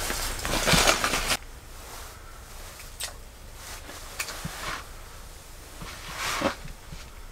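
A loud rustle for about a second and a half that stops abruptly, then a few light clicks and taps as ice-fishing rods and tackle are handled, over a faint steady hiss.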